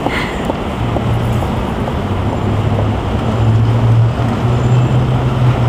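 Steady road traffic noise, with a vehicle engine's low hum coming in about a second in.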